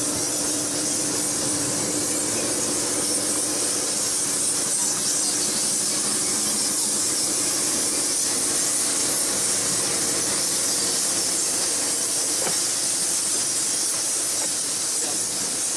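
Steady, high-pitched chattering and squeaking of a large bat colony roosting.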